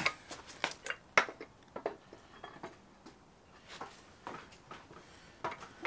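Scattered light knocks and clinks of metal parts being handled as a manual transmission is lifted and lined up against an engine's clutch and bellhousing.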